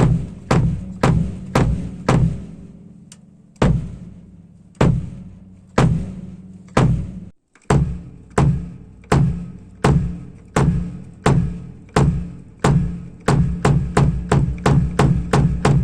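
Bass drum fitted with a new Remo Encore head, struck over and over to test its sound. Each hit is a sharp attack followed by a low ring that fades. The hits come in a steady beat, with a brief pause about halfway and a quicker run near the end.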